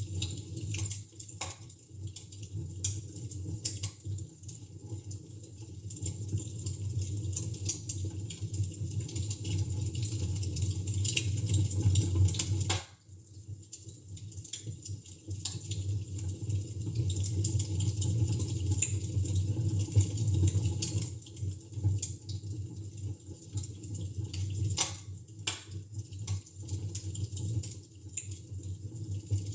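Wood fire in a fireplace crackling, with frequent short sharp pops over a steady low rumble. The sound cuts out for a moment about halfway through, then carries on.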